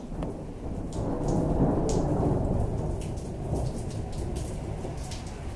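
Rolling thunder: a low rumble that builds about a second in and fades away over the next few seconds, under soft steady rain with scattered drops ticking close by.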